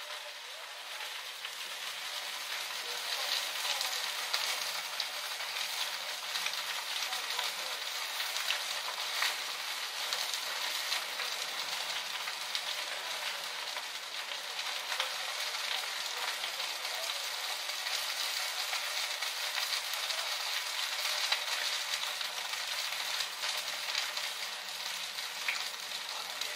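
Burning wooden smoking shed crackling with a steady hiss and scattered small pops.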